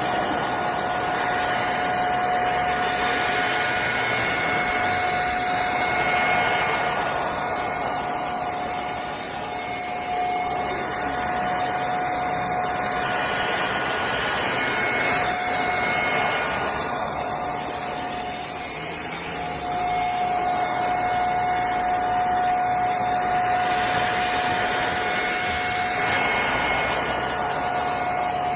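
CFBF handheld mattress vacuum cleaner running on upholstery, a steady rushing suction noise with a high whine held at one pitch, its loudness dipping briefly a couple of times.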